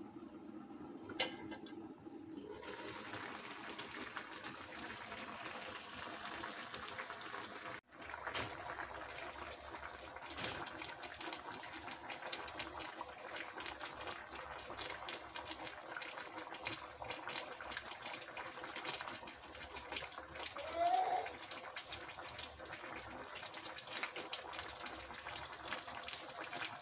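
Pork and broth simmering in an open pan: a steady bubbling, crackling hiss. A sharp click about a second in and a brief rising tone about three-quarters of the way through stand out above it.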